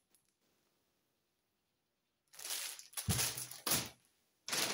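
Near silence for about two seconds, then a plastic shopping bag rustling and crinkling as it is handled, with a thump about three seconds in.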